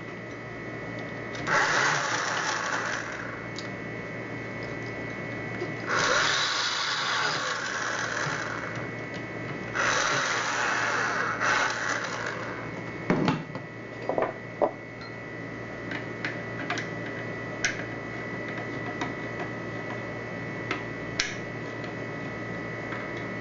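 Screws being tightened into a knob lockset: three rasping bursts of about two seconds each, followed by scattered clicks and knocks of metal lock parts being handled.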